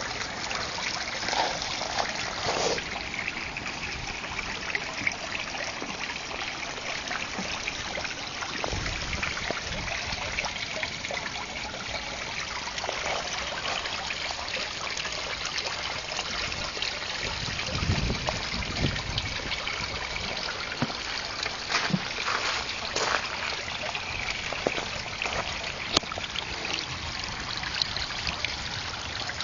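Garden water feature trickling and splashing steadily, with a sharp click near the end.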